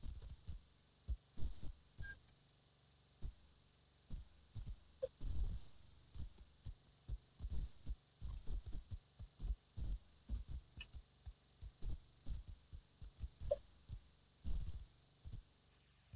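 Irregular low thumps and rumbles on an outdoor nest camera's microphone, coming in clusters of several a second, with a few faint short chirps over them.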